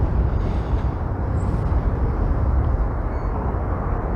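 Steady low rumble of wind buffeting a phone's microphone outdoors.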